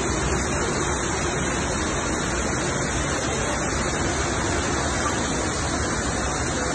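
Torrential rain pouring down, with water streaming off a roof edge onto a flooded street: a steady, unbroken rush.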